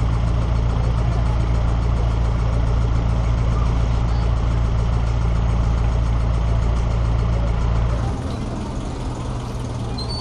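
Audi TT RS's turbocharged 2.5-litre inline five-cylinder engine idling steadily through its twin exhausts, with no revving. About eight seconds in the engine sound drops away and quieter street noise takes over.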